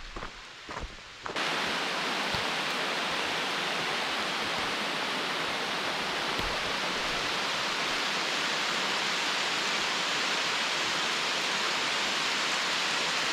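A few soft knocks, then, about a second in, a steady loud rush of water noise starts abruptly and holds even.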